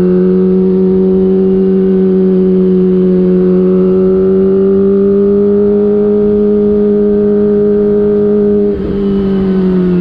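Kawasaki ZX-25R's 250 cc inline-four engine running through a DX Generation Prorace aftermarket exhaust, heard from on the bike: a steady, high-revving engine note under way that slowly rises in pitch. About nine seconds in, the note breaks briefly before it carries on.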